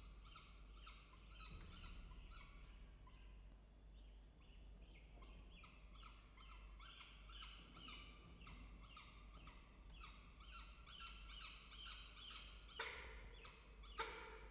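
Peregrine falcon chick begging while being fed: a rapid series of short, falling chirps, about three a second. Two sharp knocks stand out near the end.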